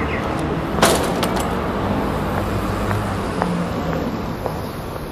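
Street traffic: a car's engine running steadily. A sharp click comes a little under a second in, with a few lighter ticks after it.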